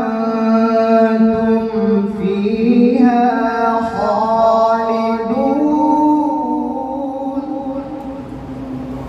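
A man reciting the Qur'an in melodic tartil style, drawing one long phrase out on held, ornamented notes. The pitch steps up about five seconds in, and the voice eases off slightly near the end.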